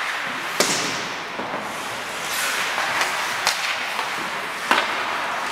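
Sharp clacks of hockey sticks and puck during ice hockey play: three clear strikes, about half a second in, past the middle and near the end, with fainter ones between, over a steady hiss.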